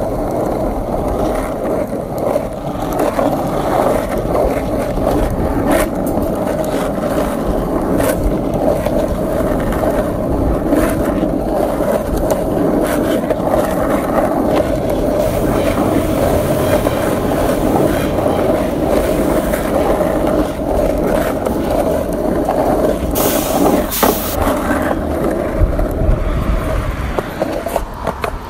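Steady road and tyre noise heard from inside a moving car's cabin in freeway traffic, with scattered clicks and two brief hisses about 23 seconds in.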